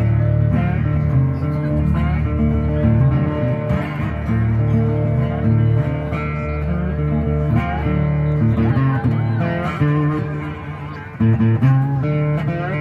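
Resonator guitar played live and amplified through PA speakers, plucked notes ringing steadily; the playing thins out just before eleven seconds in, then comes back loud.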